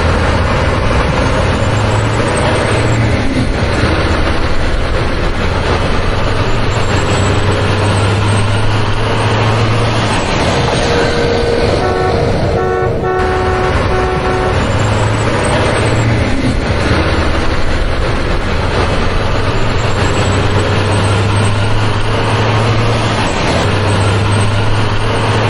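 Truck engine running steadily, with a low hum that swells and fades, and a few short horn toots about twelve seconds in.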